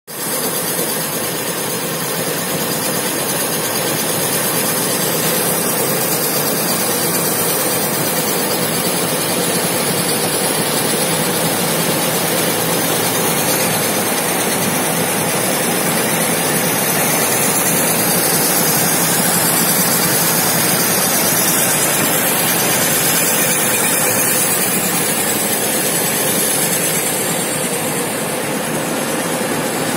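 Fully automatic aluminium foil and kraft paper lamination machine running: a steady, even mechanical drone from its motor, belt drive and turning rollers.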